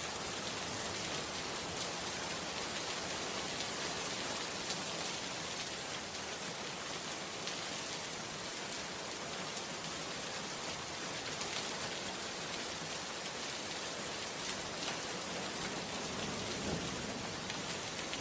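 Steady, even rain falling, with the patter of many small drops landing on a surface.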